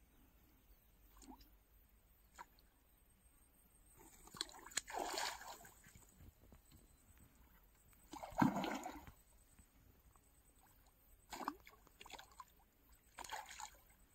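A hooked fish splashing at the water's surface as it fights a bent fishing rod: four separate splashes, the loudest a little past the middle.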